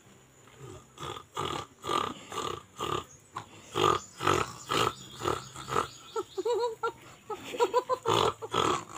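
Two people trading caveman-style gibberish, short grunting syllables and exclamations back and forth in made-up primitive speech.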